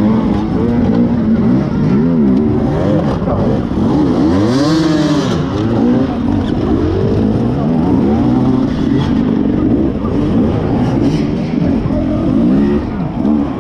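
Beta enduro motorcycle engine revving up and down in repeated quick rises and falls while the crashed bike is got going again and ridden off.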